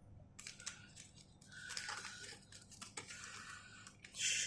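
Faint handling noises of a plastic action figure and its packaging: scattered small clicks and soft crinkling, with a louder rustle near the end.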